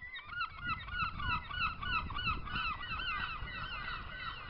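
Gulls calling over and over in quick, pitch-bending cries, about three a second, with a low rushing noise beneath.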